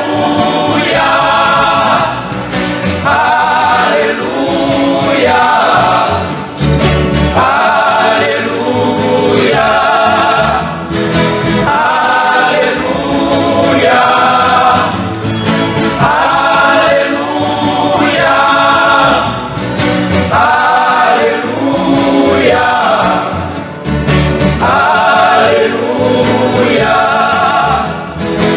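Men's choir singing a gospel hymn, accompanied by strummed acoustic guitars.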